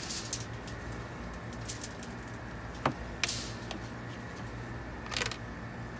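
Aluminium foil crinkling in a few short rustles, with light clicks, as a brisket is handled on it. A steady low hum runs underneath.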